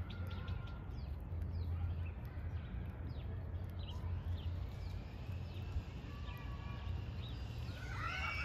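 Small songbirds chirping in the background, many short quick down-slurred calls, with a louder burst of song near the end, over a steady low rumble.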